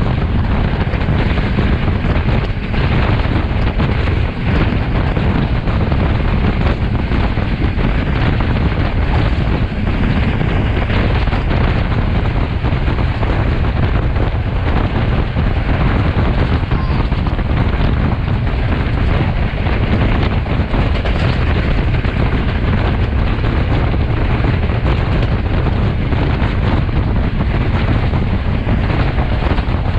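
Passenger train running fast, heard from an open carriage window: a steady rush of wind buffeting the microphone over the low rumble of the carriages on the track.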